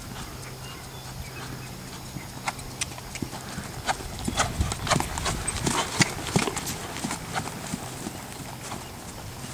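Hoofbeats of a ridden grey horse moving across a sand arena: a run of quick, sharp clip-clop clicks that builds to its loudest a few seconds in, then thins out.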